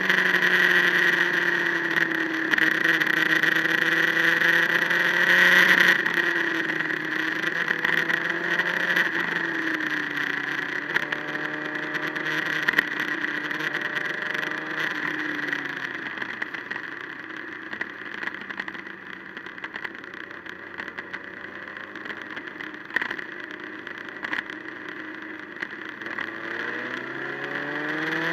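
Motorcycle engine running at speed with steady wind rush. The revs rise and fall through the bends, ease off and go quieter past the middle, then climb again near the end.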